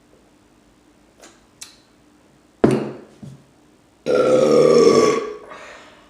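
A woman burps after a big meal: a short burp about two and a half seconds in, then a long, loud burp about four seconds in that lasts over a second, its pitch sinking slightly.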